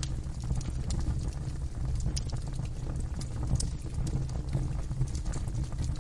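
Wood fire burning in a fireplace: a steady low rumble of flame with irregular crackles and sharp pops of the burning logs.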